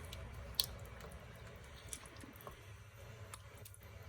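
Thick bolognese sauce of minced meat and tomatoes being stirred in a pot: soft squelching, with a few faint clicks.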